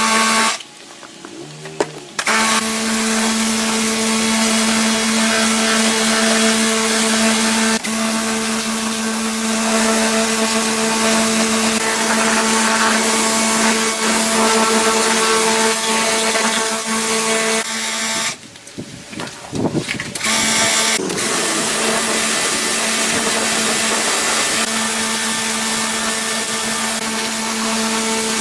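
Power tool's small electric motor running at a steady pitch. It stops twice for a second or two: once near the start and once about two-thirds of the way through.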